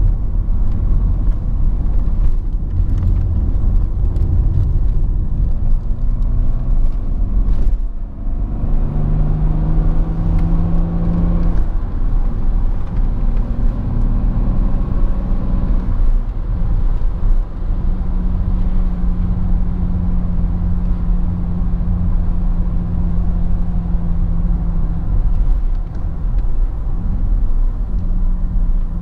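Inside the cabin of a 2002 BMW 530d (E39) on the move: its 3.0-litre straight-six turbodiesel running over a steady low rumble of road and tyre noise. About eight seconds in the sound dips briefly, then the engine note climbs for a few seconds and settles into a steady hum.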